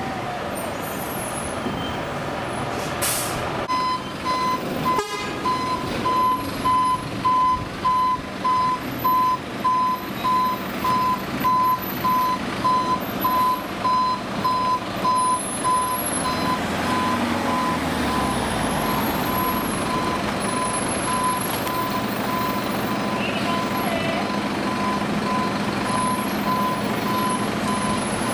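Fire appliance's reversing alarm beeping about one and a half times a second over a running diesel truck engine. The beeping stops about two-thirds of the way through, and the engine then runs on steadily. A short air hiss comes near the start, and a sharp click just after the beeping begins.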